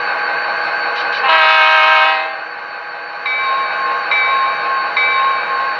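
Sound decoder of an Athearn SD50 model diesel locomotive playing through its small speaker: a steady diesel idle, a horn blast of about a second starting about a second in, then three evenly spaced bell rings.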